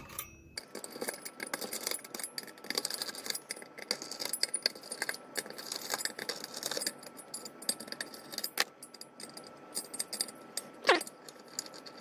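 Screwdriver backing out the screws of a finned metal heatsink: a steady run of small metallic clicks, scrapes and clinks, with a short falling squeak near the end.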